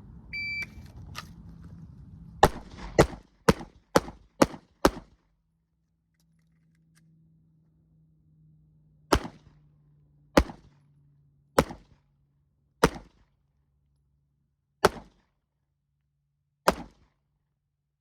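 A shot timer beeps once, then a pistol fires six quick shots. After a pause of about four seconds for a slide-lock reload, six more shots follow, spaced further apart.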